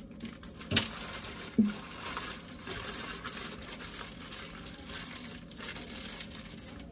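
Crinkling and rustling of something being handled, with two sharp knocks about a second apart near the start.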